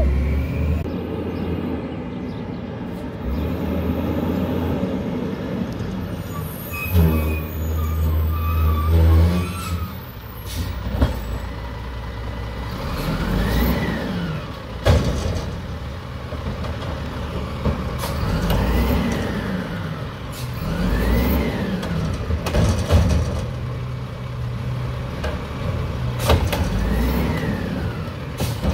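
Automated side loader garbage truck (WhiteGMC Amrep Octo) running its diesel engine while the lifting arm tips carts into the hopper: a whine rises and falls several times as the arm cycles, with a sharp bang about halfway through.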